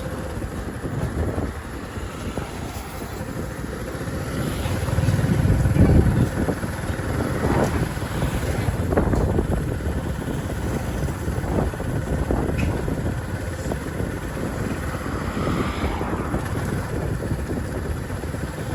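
Road traffic going by, a steady rumble of engines and tyres, with one vehicle passing loudest about five to six seconds in.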